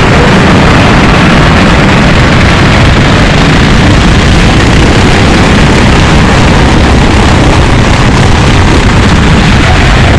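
Racing kart running at speed, heard through an onboard camera: engine noise mixed with wind on the microphone, loud and unbroken.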